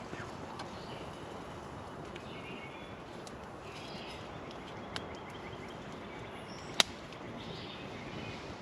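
Small wood campfire crackling under a canteen cup of heating water, with a few sharp pops, the loudest near 7 seconds in.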